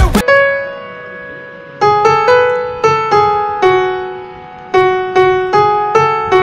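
Solo piano music: one long note fading away, then two short runs of notes, each ringing and dying off.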